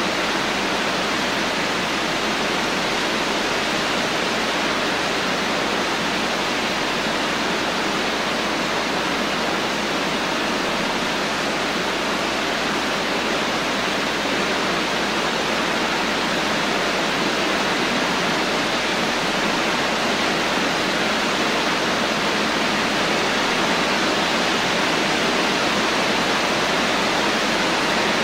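Steady rain: a constant, even hiss with no separate drops or thunder standing out.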